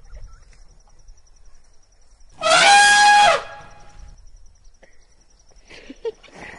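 Elephant trumpeting sound effect: one loud, high trumpet call lasting about a second, a little over two seconds in, sliding up in pitch as it starts.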